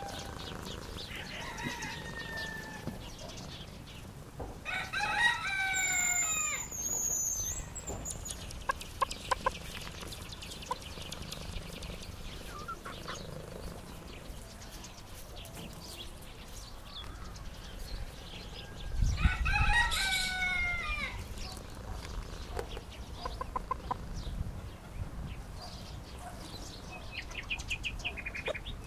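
A rooster crowing twice, each crow lasting about two seconds, the first about five seconds in and the second about twenty seconds in. Short clucking notes are heard between the crows and near the end.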